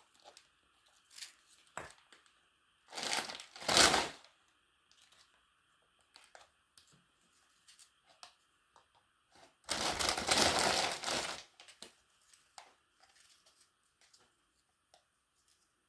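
Plastic cookie bag of vanilla wafers crinkling as it is handled, in a short burst about three seconds in and a longer one about ten seconds in, with faint small ticks between.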